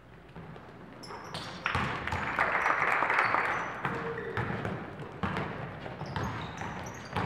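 Basketball game sounds in a gym: the ball bouncing on the court among short knocks and squeaks, with a swell of crowd noise about two seconds in that eases off after about four seconds.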